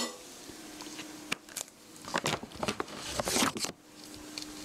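Kitchen utensils and ingredient containers being handled: a few light clicks and knocks, with a busy stretch of rustling and scraping from about a second and a half in until nearly four seconds in.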